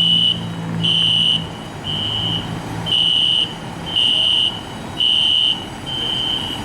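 Fire alarm sounding: a loud, high-pitched beep repeating about once a second, each beep a little over half a second long with short gaps between.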